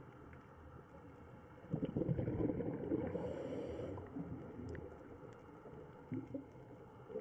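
Muffled underwater noise heard through the camera's housing: a low rumble with a louder gurgling stretch of about a second and a half, starting a little under two seconds in, and a couple of soft knocks near the end.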